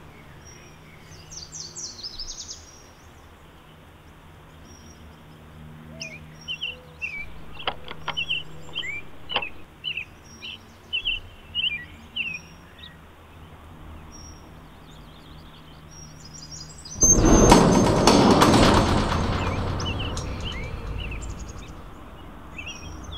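Small birds chirping over outdoor background noise, with a couple of sharp clicks. About 17 seconds in, a sudden loud sound starts and fades away slowly over about five seconds.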